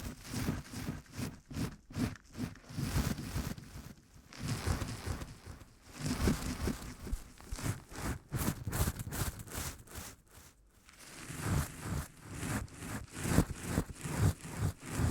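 Rustling and crinkling close to the microphone, in irregular bursts, with a short lull about ten seconds in.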